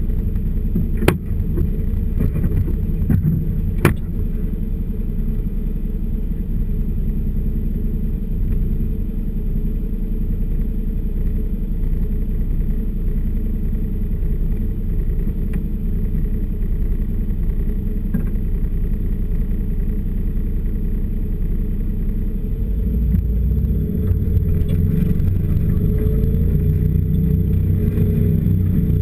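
Snowmobile engine idling steadily, with two sharp clicks in the first four seconds. About 23 seconds in it gets louder and rises in pitch as the machine moves off across the snow.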